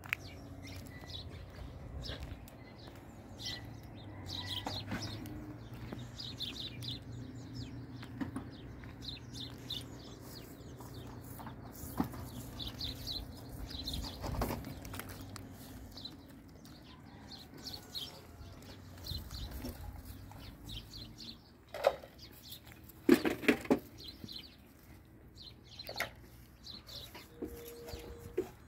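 Small birds chirping on and off over a low steady hum that fades out about halfway through. A few sharp knocks and clatters come near the end.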